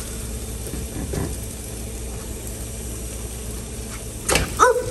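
Steady hiss with a low hum from a lit gas stove burner with tortillas frying on a griddle over it. Near the end come a few sharp knocks and the start of a voice.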